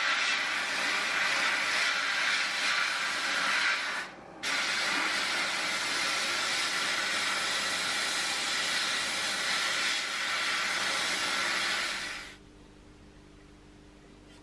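Abrasive blast cabinet gun hissing steadily as it strips old paint and rust off a toy bulldozer's steel parts. It stops for a moment about four seconds in, then cuts off near the end, leaving only a faint low hum.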